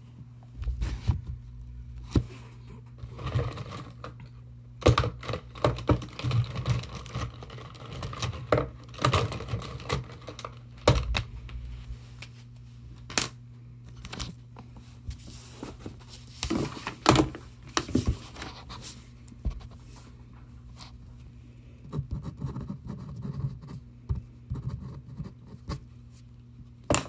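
Irregular knocks, scrapes and rustles of close handling at a painting table, as the camera is moved about over paper and a paper-plate palette. A steady low hum runs underneath.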